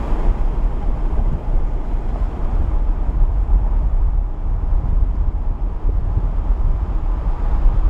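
Wind buffeting the camera microphone outdoors: a loud, uneven low rumble that gusts up and down, with a hiss above it.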